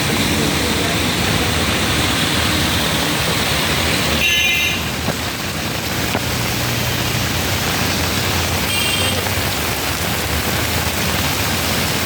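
Heavy rain and road traffic on a waterlogged road: a steady rushing hiss, with a brief high-pitched tone about four seconds in and a shorter one near nine seconds.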